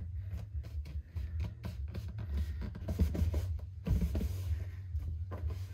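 Hands rubbing and pressing a glued rubber strip down onto a plastic gas jug: scratchy rubbing with light clicks and taps, over a steady low hum.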